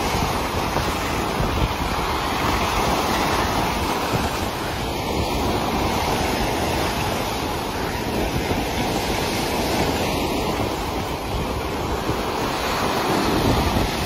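Sea surf breaking and foaming: a steady, unbroken rush of waves, with wind on the microphone.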